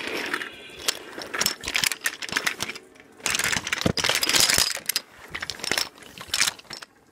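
Crash of toy trains: a run of clattering clicks and knocks as the engine and wagons collide and tumble, with a louder rattling rush about three to five seconds in.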